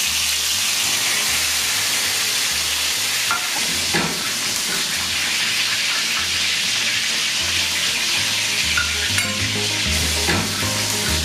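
Whole seasoned fish frying in hot sunflower oil in a grill pan: a loud, steady sizzle, broken by a few light clicks.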